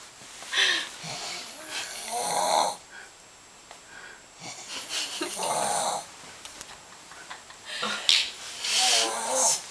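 A person snoring in their sleep: about four rasping snores, each a second or so long, spaced two to three seconds apart.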